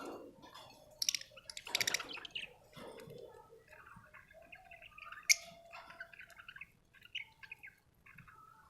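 Budgerigars chirping and chattering, with a few harsh, loud squawks early on and a sharp click about five seconds in.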